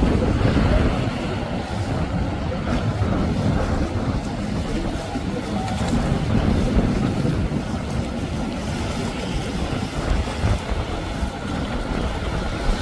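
Large motor yacht running past under power: a steady low engine rumble mixed with the rush of water from its bow wake.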